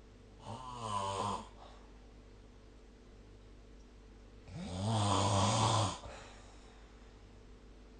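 A sleeping person snoring: two snores about four seconds apart, a short one about half a second in and a longer, louder one about four and a half seconds in, with a faint steady hum between them.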